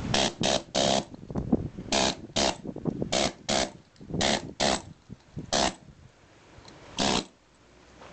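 Pneumatic air hammer chiselling excess concrete off a foundation in about a dozen short bursts, each a fraction of a second of rapid rattling blows.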